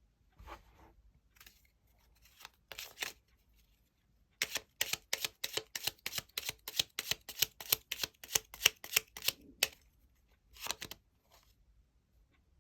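Tarot cards being handled: a few soft rustles, then a quick even run of about twenty crisp card snaps, about four a second, lasting some five seconds, and one more snap near the end.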